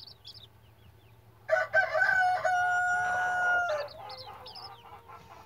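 Newly hatched chicks peeping softly; about a second and a half in, a rooster crows loudly for about two seconds, ending on a long held note.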